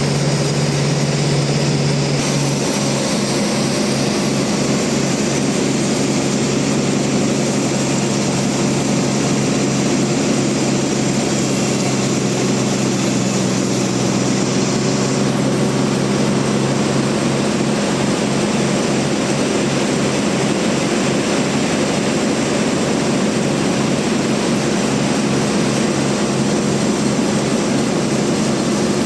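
Large band sawmill running steadily with a continuous mechanical drone while sawing a trembesi (rain tree) log; the low hum turns slightly pulsing about two seconds in.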